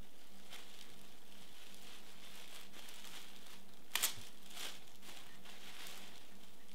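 Clear plastic garment bag crinkling as it is handled and pulled open, with one sharp crackle of plastic tearing about four seconds in, followed by a few more rustles as the shirt comes out.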